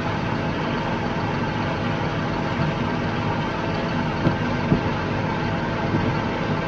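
A farm vehicle's engine running steadily, a constant drone with a few steady tones, and two light knocks a little past the middle.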